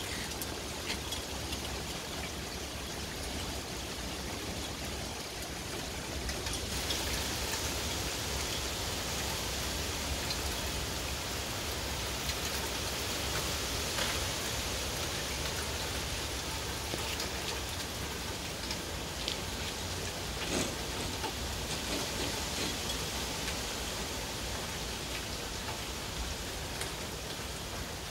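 Steady hurricane rain falling, growing heavier about six or seven seconds in, with scattered sharper drop impacts.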